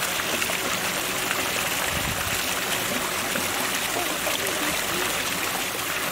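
Running water flowing steadily, a continuous rushing hiss.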